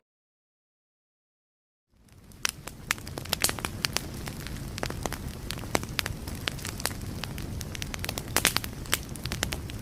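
Fire crackling: a steady low rush of flames with frequent sharp pops and snaps, fading in after about two seconds of silence.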